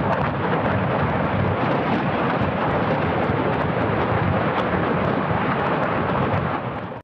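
Grad multiple rocket launcher salvo: rockets launching in quick succession make a continuous loud roar, which fades in the last second and cuts off abruptly.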